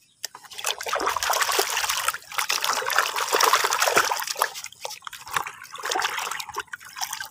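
Water splashing and trickling as muddy toys are washed by hand in a container of clean water, with small clicks and knocks of the toys throughout.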